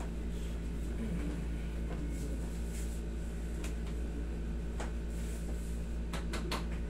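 Steady low hum of a wall-mounted air conditioner running in a small room, with a few faint clicks near the end.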